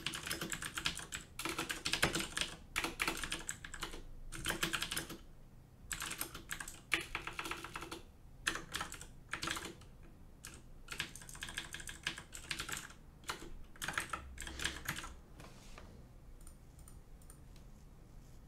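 Typing on a computer keyboard in quick bursts of key clicks with short pauses, thinning to a few faint clicks for the last few seconds.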